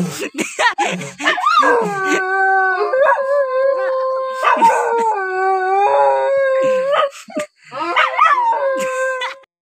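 Black-and-tan dog howling with its head raised: short yelping glides, then a run of long howls, each held on one note and stepping between a lower and a higher pitch, with a brief break about seven seconds in.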